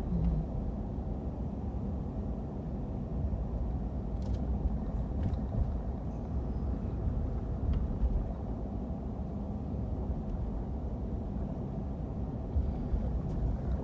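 Car in motion: steady low rumble of engine and road noise, with a few faint ticks.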